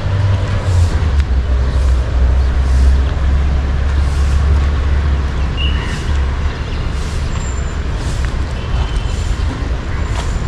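A motor vehicle engine running with a steady low rumble that drops slightly in pitch about a second in, amid road traffic noise.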